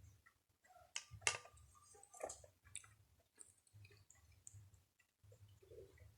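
Quiet, close-miked chewing of uphuthu, crumbly dry maize pap mixed with amasi sour milk: scattered wet mouth clicks and squelches, with a sharper click about a second in.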